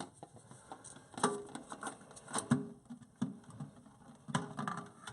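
Irregular clicks and light knocks of the plastic parts of a toilet dual-flush repair kit being handled and fitted together.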